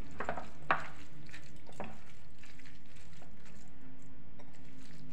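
Hand mixing and squeezing a wet mash of grated cabbage, carrot and cornflour in a glass bowl, with a few sharp clicks against the bowl in the first two seconds.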